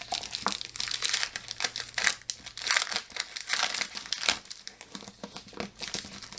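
Crinkling and rustling of a scrapbook paper pad and its wrapping being handled: an irregular run of crackles with a few sharper snaps.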